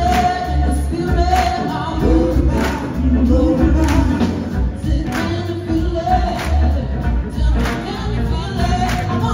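A full rock-soul band playing live with a woman singing long held lines over a steady drum beat and heavy bass. It is recorded from the audience in a concert hall.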